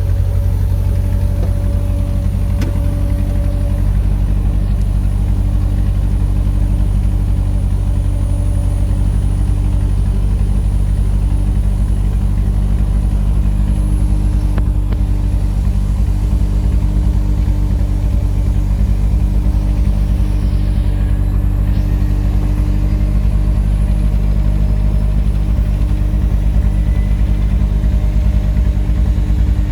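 Steady engine noise on an airport apron during pushback: a loud, unchanging low hum with a thin high whine above it.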